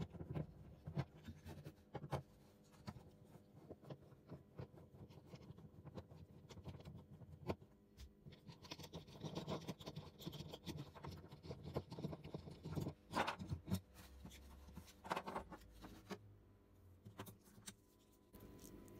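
Light scratching, rubbing and small clicks of hand work on an acoustic guitar, scattered and irregular, busiest in the second half.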